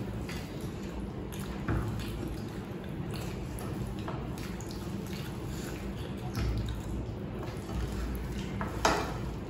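Fingers mixing and squishing rice with egg curry on plates, a run of small wet clicks and squelches, with a sharper tap near the end.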